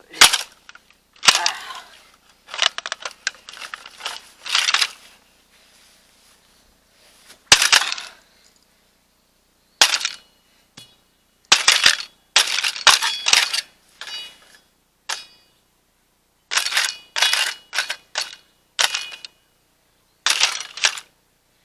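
A remote-control car being smashed with a hand tool: a string of separate blows and crunches of its plastic body and parts, several with a brief metallic ring.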